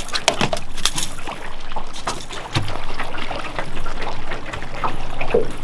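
Water splashing and lapping around a fishing boat in short irregular splashes, with a low steady motor hum coming in about two and a half seconds in.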